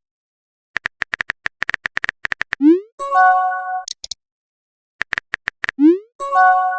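Phone messaging-app sounds, heard twice in a row. Each time, a run of quick keyboard-tap clicks is followed by a short rising swoosh as the message is sent. Then comes a brief electronic chime, with a few quick high blips after it.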